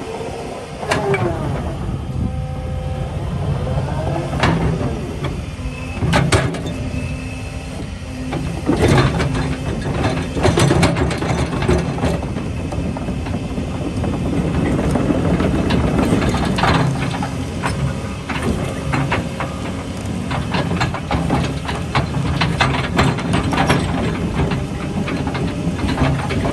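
Doosan DX225 LC-5 excavator running: a steady diesel engine hum with frequent metallic clanks and knocks from the machine working, and a few sweeping whines in the first couple of seconds.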